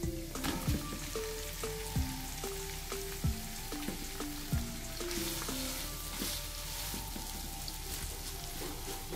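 Minced beef sizzling in hot oil in a non-stick wok as it is tipped in and stirred with a plastic slotted spoon, the sizzle getting louder about five seconds in. Background music with a regular beat plays throughout.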